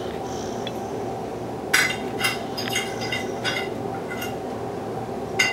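Metal silverware clinking against dishes: a quick run of sharp clinks starting a little under two seconds in, with one last clink near the end, over a steady low background hum.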